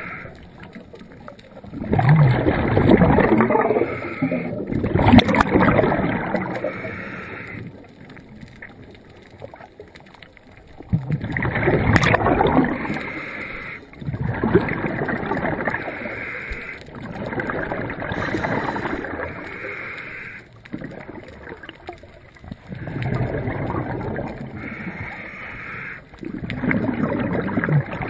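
A diver's breathing heard underwater: rushing, bubbly swells of air about every three seconds, each lasting one to two seconds, with quieter gaps between breaths.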